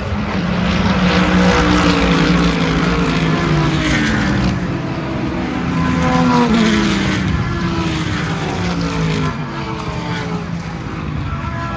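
A pack of GT race cars, among them a Corvette and an Aston Martin, passing one after another. Each engine's pitch drops as it goes by, with the loudest passes about two and six seconds in.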